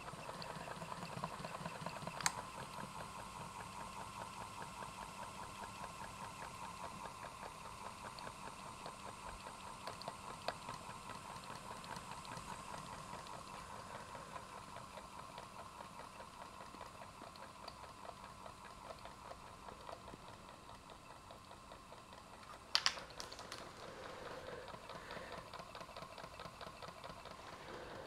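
Small electric motor-generator running steadily, a light, even whirring buzz, while it lights two small bulbs from its output. A few sharp clicks break in, the loudest a quick double click late on.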